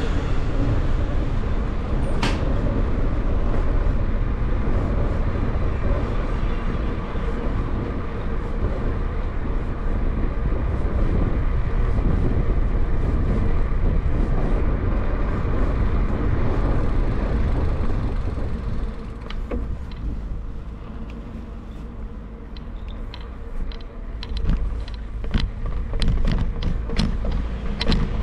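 Street noise recorded from a moving bicycle: a steady, heavy rumble of the ride and passing road traffic. About two-thirds through the rumble eases and a run of sharp clicks and rattles sets in.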